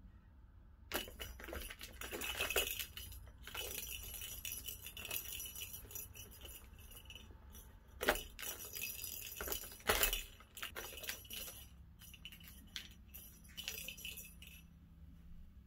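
Balls clattering and rolling round the plastic tracks of a three-tier circular cat toy as a kitten bats at it, in irregular bursts with two sharper knocks about eight and ten seconds in.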